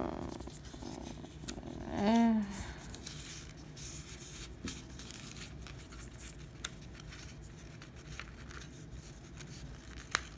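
A square of white paper being folded and creased by hand on a tabletop: soft rustling and small crinkles as the fingers pinch and press the folds, with a single sharp click near the end.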